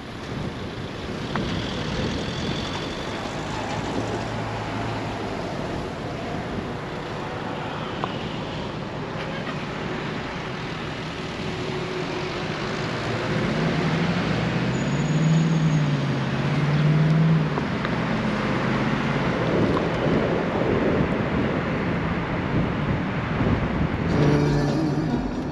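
Wind and road noise from a moving road vehicle. Past the middle, its engine note rises and falls a few times and gets louder.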